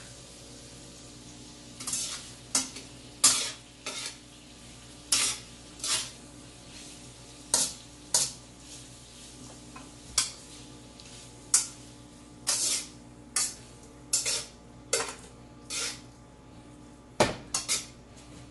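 A utensil scraping and knocking against a wok as shrimp fried rice is stir-fried, in irregular strokes roughly once a second starting about two seconds in, over a faint sizzle.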